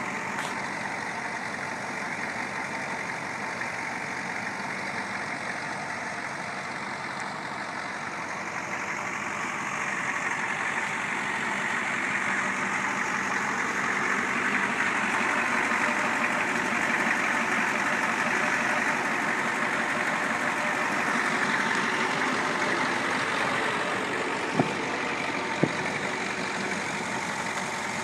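Ford 7.3L Powerstroke turbo-diesel V8 idling steadily, gradually growing louder through the middle. Near the end there are two sharp clicks about a second apart.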